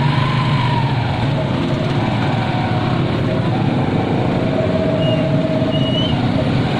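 Motorcycle engine of a passenger tricycle running steadily under way, heard from inside the sidecar, with surrounding street traffic.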